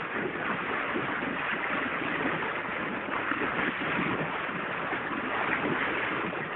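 Steady rush of sea water streaming and splashing past a moving boat, with wind on the microphone.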